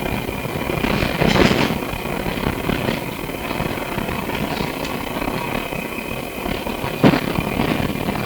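Melbourne SW5 class tram running, heard from inside the car: steady running noise with a thin high tone, a louder stretch about a second in, and a sharp knock about seven seconds in.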